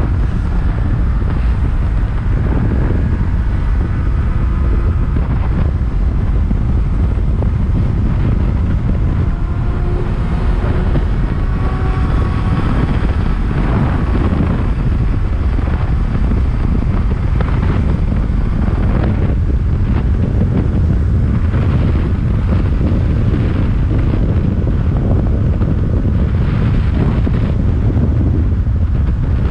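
Wind rushing over the microphone of a moving motorcycle, steady and loud, with the engine running underneath.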